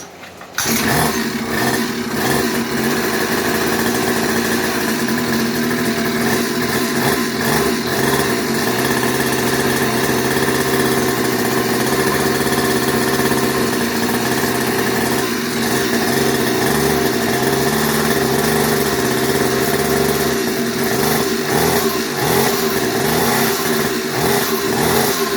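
Speedmax Coolster's brand-new 50cc two-stroke engine starts about half a second in and runs steadily, breaking in after a top-end blow-up forced the motor's replacement.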